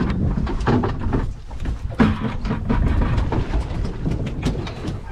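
Wind rushing over the microphone and water slapping against a drifting boat, with scattered clicks and knocks.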